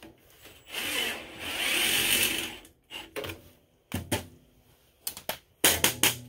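DeWalt cordless drill running in two spurts, about two seconds in all, at the aluminium diamond-plate floor pan. It is followed by several short, sharp knocks and clatters of metal being handled.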